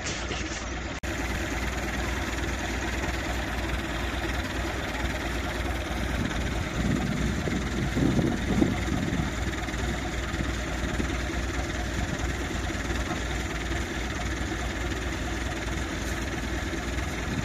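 Massey Ferguson tracked tractor's engine running steadily, with a brief louder swell about seven to nine seconds in.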